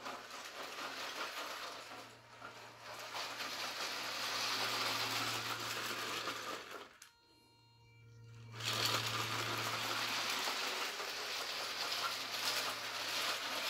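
3D-printed G-scale Stephenson's Rocket model train running on its track: the small electric motor in the tender whirs and the wheels rattle over the rails. The sound drops away for about a second, around seven seconds in, then comes back.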